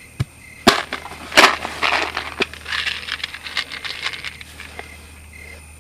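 Small plastic boxes handled and opened by hand: a few sharp clicks and snaps in the first second and a half, then a couple of seconds of crackling and rustling.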